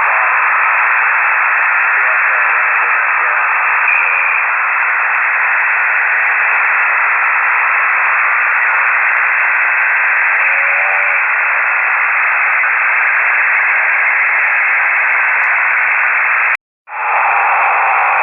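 Shortwave radio static heard through a KiwiSDR web receiver: a steady hiss cut off to the narrow voice band of single-sideband reception, with faint traces of a weak, garbled voice. Near the end the audio drops out completely for a moment, then comes back.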